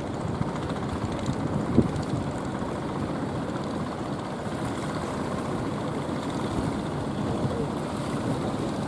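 Steady rumble of rough surf and wind on the microphone, mixed with the running engines of outrigger fishing boats, with one sharp thump about two seconds in.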